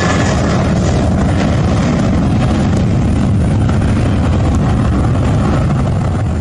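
Air India Express Boeing 737's twin jet engines at takeoff power as it climbs out, a loud steady rumble whose high hiss thins out as it goes.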